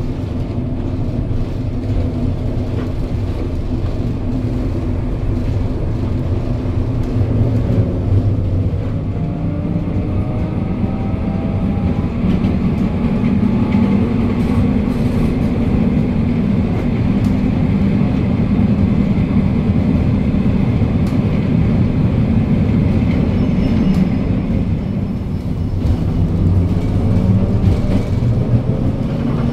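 Historic electric tram running on its rails, with a steady rumble of wheels and running gear. About a third of the way in a whine rises in pitch, then holds steady, and a faint high squeal comes in near the end.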